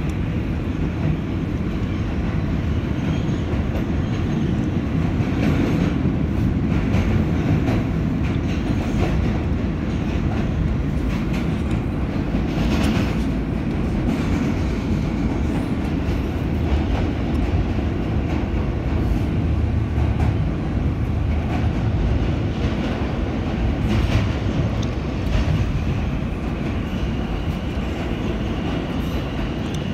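Inside a 2005 Alstom-built R160A New York subway car running between stations: a steady, loud low rumble of wheels and running gear, with occasional clacks over the rail. A thin, steady high tone joins near the end.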